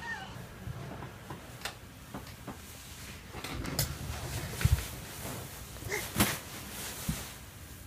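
Scattered soft thumps and knocks of a toddler clambering on a floor cushion, the loudest about halfway through and again about six seconds in.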